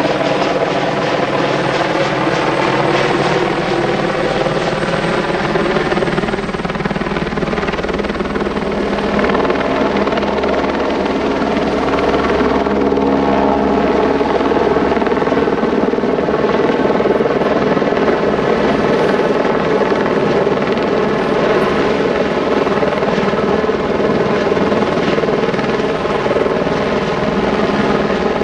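A steady, loud engine drone made of several pitched tones that drift slowly up and down in pitch.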